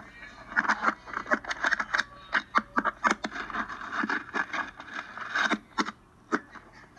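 Irregular scraping, knocking and rustling of body, clothing and gear against rock as a caver crawls through a tight squeeze, many small knocks in quick succession.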